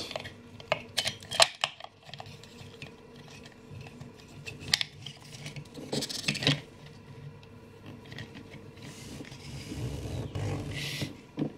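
Hard plastic toy parts clicking, tapping and rubbing as an action figure is set on a playset's plastic table and the table is swung upright. There is a quick run of sharp clicks near the start, then scattered quieter taps and scrapes.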